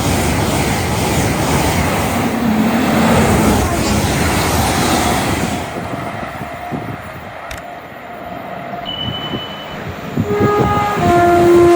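A train passing at speed with a loud rushing noise that dies down after about five seconds. Near the end a two-tone train horn sounds, a higher note followed by a lower one, and the lower note sags in pitch as it ends.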